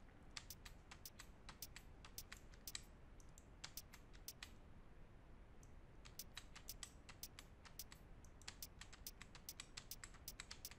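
Faint clicking of a computer keyboard and mouse: quick, irregular taps in runs, with a pause of about a second and a half near the middle.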